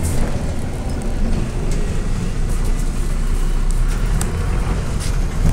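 Inside a moving MAZ-105 articulated city bus: the steady rumble of its diesel engine and tyres on the road, with a few light rattles.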